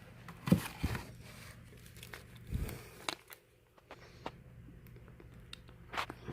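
Fan parts and packing material being handled: crinkling packaging with scattered clicks and knocks, the loudest knock about half a second in.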